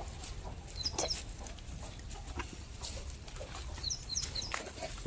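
Chickens clucking and calling, with two brief clusters of short, high chirps, about a second in and again near the end.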